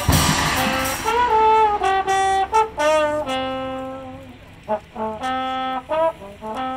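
Solo trumpet playing a melody, one note after another with short gaps in the second half, over a quiet sustained low note. It begins out of the tail of a loud crash that dies away within the first second.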